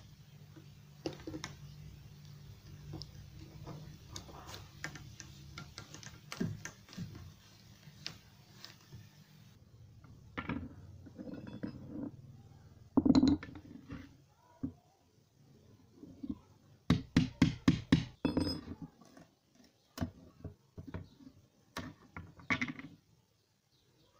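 Hands fitting PVC pipe pieces into a plastic joint, with faint clicks and rubbing over a low hum. Then thin wooden strips are handled on a concrete floor: separate knocks, and a quick run of sharp clicks and knocks as the sticks clatter together.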